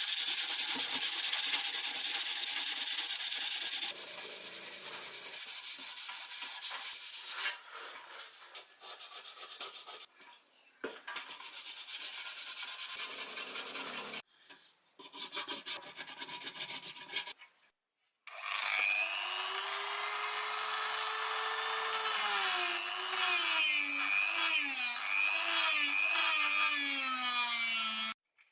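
Scratchy rubbing or sanding on a part, in several short cut segments, the first one the loudest. After a short gap, a wavering pitched tone with many overtones plays for about ten seconds and cuts off near the end.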